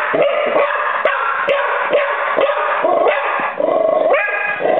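A Lab–beagle mix dog barking rapidly and repeatedly in excitement at blue crabs, about two barks a second, with a couple of longer drawn-out barks near the end.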